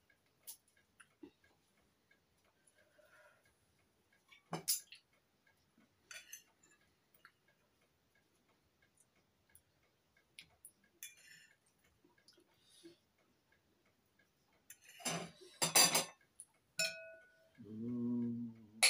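Metal cutlery clicking and scraping on china plates and serving dishes during a meal, mostly sparse and faint, with a sharp clink a few seconds in and a burst of louder clinks about fifteen seconds in. Near the end a brief low hum from a voice.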